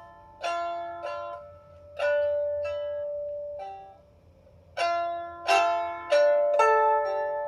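A 16-string lyre harp, freshly given a rough tuning, is plucked in single notes and chords that ring and die away. There is a brief pause about four seconds in, then a quicker run of several plucks.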